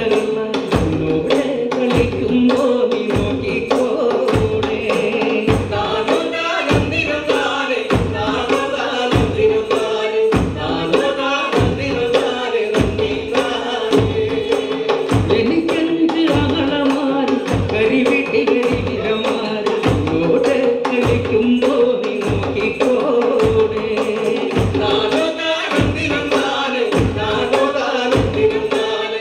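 Malayalam folk song (nadanpattu) sung by a group with a lead singer, over a steady beat of hand-played drums.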